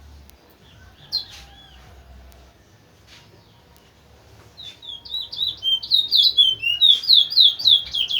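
A towa-towa songbird singing: a brief call about a second in, then from about halfway a fast, loud run of sweeping whistled notes.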